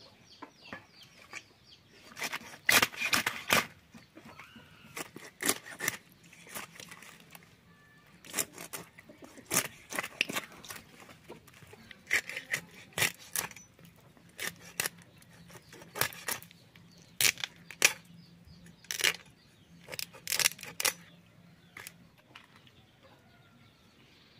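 Rohu fish being cut into pieces against a bonti, a fixed curved blade, giving irregular sharp crunching and scraping strokes every second or two as the blade goes through flesh and bone.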